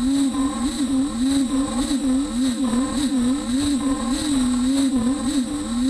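Beaver HDZero CNC router milling 1/2-inch aluminum tool plate: a loud machine whine that swings up and down in pitch about three times a second, over a steady high-pitched whine and a hiss of cutting.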